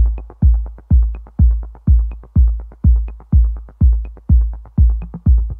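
Electronic dance music with a heavy kick drum on every beat, about two a second, fast ticking hi-hats between the kicks and a sharper hit about once a second.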